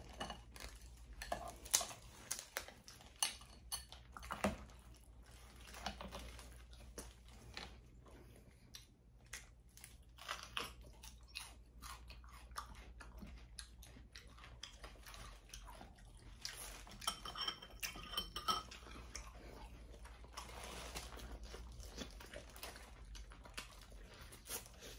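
Close-miked eating sounds: crab-leg shells snapping and being pulled apart by hand, then crunchy bites and chewing of a raw mini sweet pepper, with many short clicks and crackles throughout.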